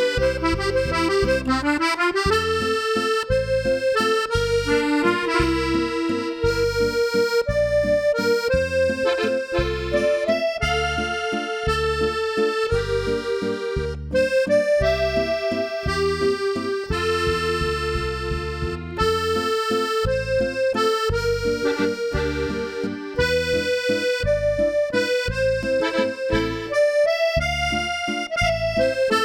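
Solo accordion playing a musette waltz: a melody in the right hand over a steady oom-pah-pah bass and chords in three-time.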